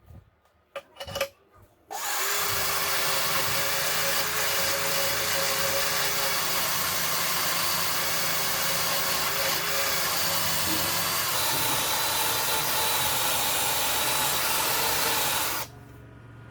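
A few light clicks, then a power tool starts about two seconds in, runs steadily and loudly with a faint whine for about fourteen seconds, and cuts off near the end.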